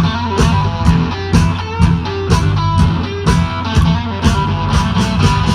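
Live band playing an instrumental stretch of a blues-rock song: electric guitar over bass and drums keeping a steady beat of about two hits a second.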